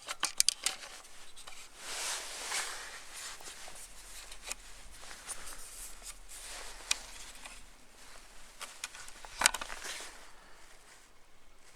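Hands working the plastic fuel tank cap of a Husqvarna 445 chainsaw: scattered clicks, scrapes and rustling, with one sharper click about nine and a half seconds in.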